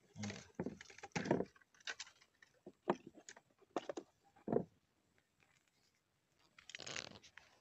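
Irregular clicks, taps and rustles of handling in a small wooden boat, with the loudest knocks about three seconds in and a quieter stretch after five seconds.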